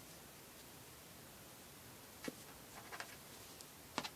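Faint rustles and a few soft clicks of fingers handling and pulling cord through a knot, over a steady low hiss.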